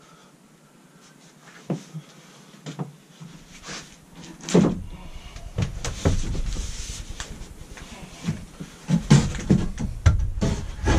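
Wooden knocks and thumps from a thin sheet of OSB being pressed up against a van ceiling and a wooden prop pole being handled and set against it, with scraping and rustling between the knocks. A few sharp knocks come in the first half, and the handling noise grows busier about halfway through.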